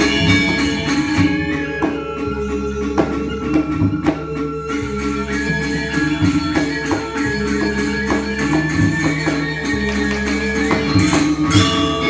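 Live Balinese gamelan orchestra playing: struck metallophones ring in repeating interlocking patterns over drum strokes.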